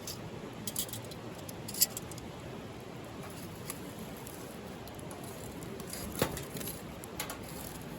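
Wood fire crackling in a wood-fired grill: scattered sharp snaps and pops, the loudest about two seconds in and another near six seconds, over a steady low hiss.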